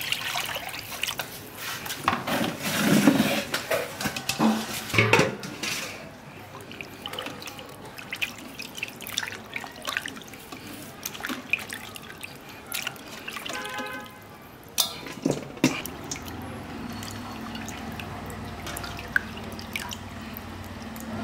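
Water poured into a metal basin and splashing as hands wash raw quail carcasses in it, with drips and wet squishing of the birds. The splashing is loudest in the first few seconds.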